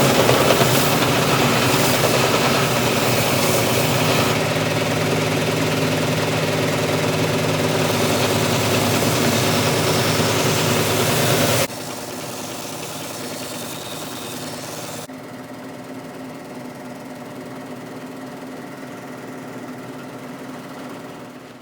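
Power tool motor running steadily, with a hum of several steady tones over a noisy whir. Its level drops abruptly about 12 seconds in and again about 15 seconds in.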